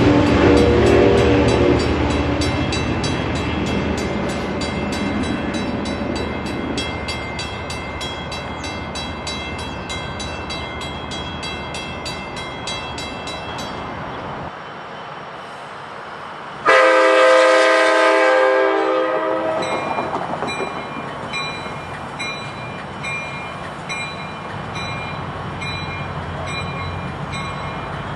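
A train's horn trails off at the start and its rail noise slowly dies away. Then an approaching Amtrak passenger train's EMD F59PHI locomotive sounds one long blast of its multi-note air horn, about two seconds long, and keeps running toward the tracks.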